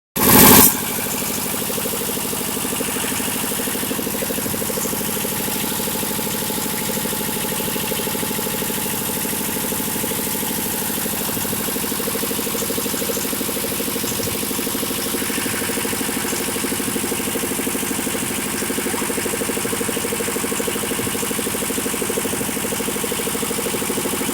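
Diesel generator set, a 20 kVA diesel engine genset, running steadily at constant speed. A short loud burst comes right at the start, before the steady running.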